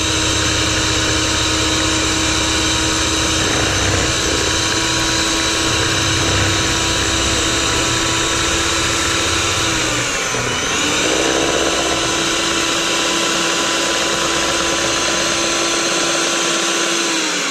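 Electric hand mixer running steadily, its beaters whipping an egg batter in a mixing bowl. The motor's whine dips briefly in pitch about two-thirds of the way through, then comes back up.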